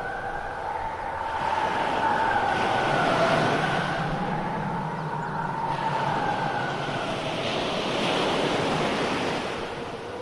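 Howling wind sound effect: whistling tones that rise and fall slowly over a rushing noise, which swells twice.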